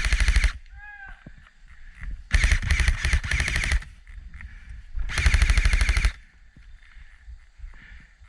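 Airsoft rifle firing on full auto in three rapid bursts: the end of one in the first half second, a longer one of about a second and a half, and another of about a second near the end.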